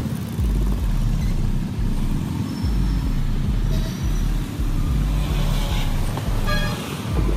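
Street traffic: cars and motor scooters passing, with a low rumble that pulses about once a second.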